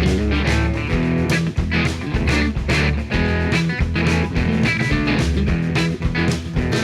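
Background rock music with guitar, bass and a steady drum beat.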